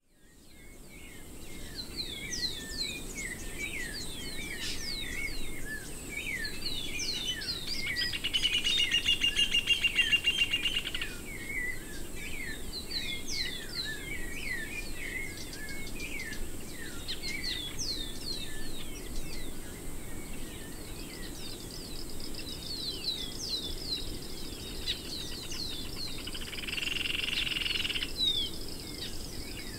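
Many birds singing and chirping together in a busy chorus of short whistled notes, fading in at the start. A rapid buzzy trill stands out for about three seconds near the middle, and another shorter one near the end.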